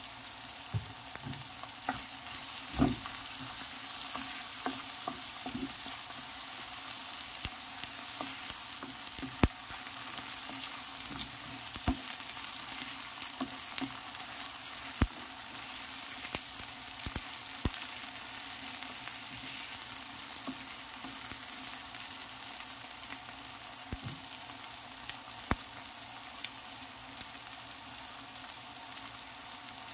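Chopped onion, tomato, ginger and garlic frying in butter in a pan, sizzling steadily. Scattered sharp clicks and scrapes come through as the mix is stirred with the tomato paste.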